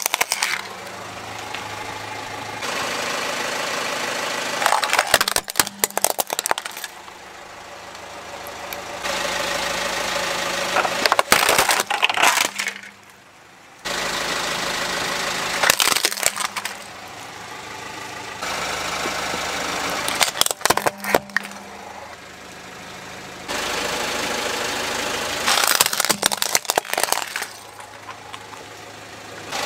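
Plastic and die-cast toy cars cracking and crunching as a car tyre rolls over them, a burst of sharp cracks about every five seconds. A car engine runs steadily between the bursts.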